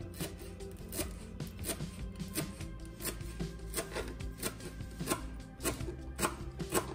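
Kitchen knife chopping fresh dill on a plastic cutting board: a steady run of knocks, about three every two seconds, over background music.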